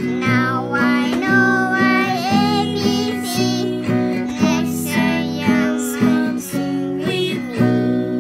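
A young child's voice singing and sounding out the alphabet, in short phrases about every half second, over strummed acoustic guitar background music.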